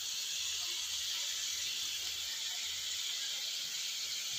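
Steady sizzle of chopped giant clam meat and aromatics frying in hot oil in a wok.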